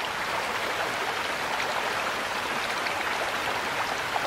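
Running water splashing steadily, an even rush with fine droplet patter.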